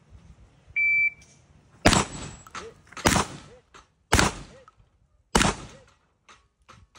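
Electronic shot-timer beep starting the stage, then four handgun shots about a second apart.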